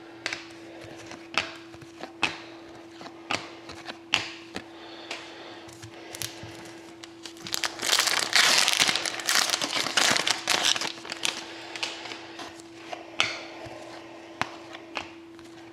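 Hockey card pack wrapper crinkling and tearing as it is opened, with scattered clicks and snaps of cards being handled. The crinkling is densest for about three seconds in the middle.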